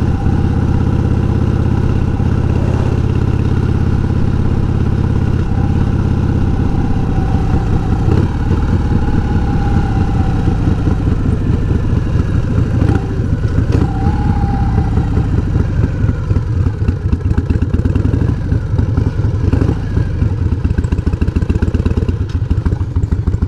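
1988 Harley-Davidson Heritage Softail's Evolution V-twin running under way, steady at first. From about seven seconds in it drops to a lower, lumpier beat in which the separate firing pulses can be heard.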